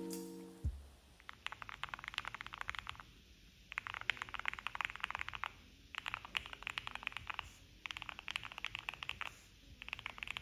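Typing on an Owlab Jelly Evolv custom mechanical keyboard fitted with lubed and filmed Gateron Oil King switches, PBT keycaps and case, PE and plate foam, set up for a creamy sound. The keystrokes come as rapid clacks in five bursts of one to two seconds each, with short pauses between. Background music cuts off just under a second in.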